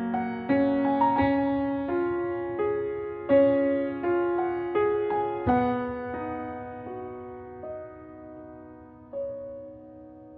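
Background piano music: a slow, gentle melody of single struck notes that ring and decay. The notes thin out after about six seconds and fade toward the end.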